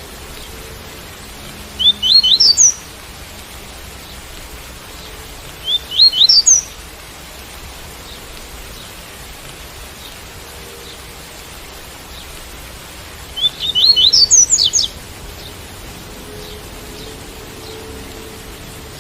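Double-collared seedeater (coleiro) singing the tuí-tuí song: three short phrases of quick rising notes, about two, six and fourteen seconds in, over a steady hiss of rain.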